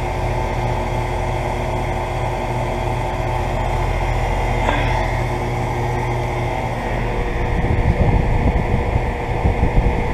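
Two central air-conditioner condensing units, a York 2.5-ton and a Guardian 4-ton, running together: a steady compressor hum with a few constant tones under the rush of the condenser fans. An irregular low rumble joins in for the last couple of seconds.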